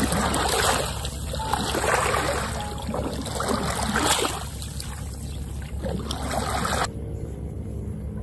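Small waves lapping and washing over wet sand at the water's edge, in repeated surges. The sound drops abruptly quieter about seven seconds in.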